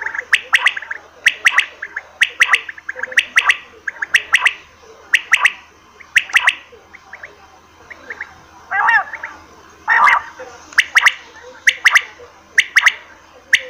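Quail calling over and over: short, sharp, clipped calls at roughly one to two a second, with a brief pause midway.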